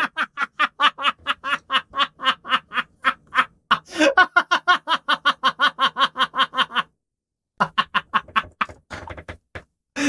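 A man laughing hard: a long run of rhythmic 'ha' pulses, about four a second, that breaks off briefly about seven seconds in, then picks up again with a few fainter ones.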